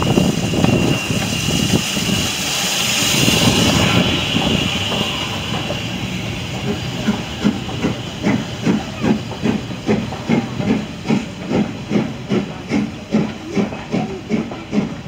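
A steam locomotive passing, hissing steam loudly for the first few seconds. The train's movement then gives a steady rhythmic beat, about three a second, as it goes by.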